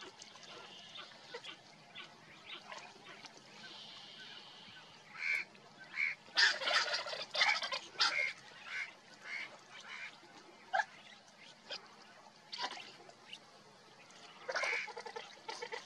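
Harsh bird calls: short single calls scattered through, with louder bursts of raspy, rapidly pulsing calls about halfway through and again at the end.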